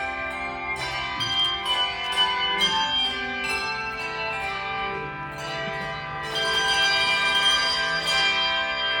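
Handbell choir ringing dense sustained chords, with new strikes every second or so and a louder set of strikes about six seconds in. All the bells cut off at once at the end.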